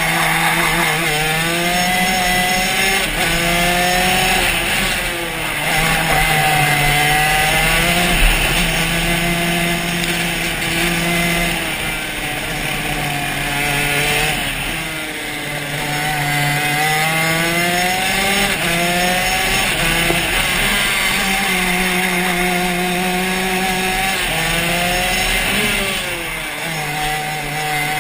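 Shifter kart's two-stroke engine heard onboard at racing speed, its pitch climbing again and again and dropping back every few seconds as it accelerates through the gears and slows for corners.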